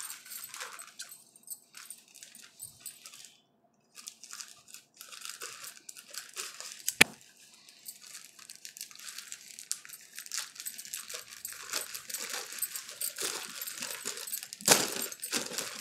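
Plastic courier mailer bag being crinkled and pulled open by hand, its sealed flap tearing, with a sharp click about seven seconds in and a louder rip near the end.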